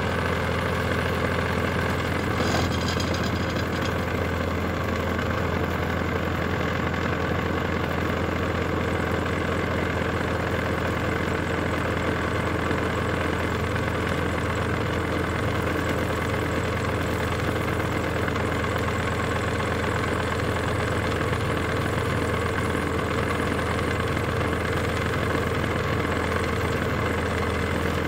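Small electric cotton candy machine running, its motor spinning the heated sugar head and throwing out floss, with a steady, even hum.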